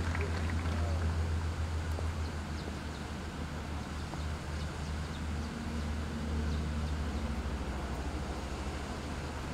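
A steady low rumble with a few faint, scattered clicks from the cadets' rifles as they are moved through silent drill positions.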